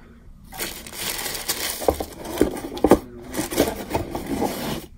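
Tissue paper crinkling and rustling as a packed gift box is unwrapped and handled, with a couple of soft knocks from the cardboard box about two to three seconds in.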